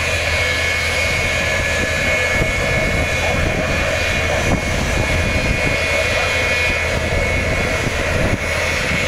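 Jet engine of a jet-powered semi truck running steadily: a high, even whine over a loud rushing noise, with no rise or fall in pitch.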